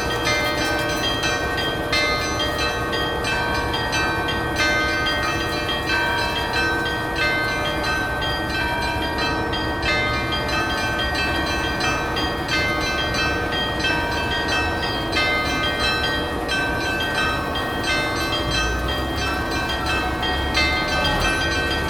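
Russian Orthodox cathedral bells being rung: several bells of different pitches struck over and over in a rapid pattern, their tones ringing on into one another. A low rumble comes in near the end.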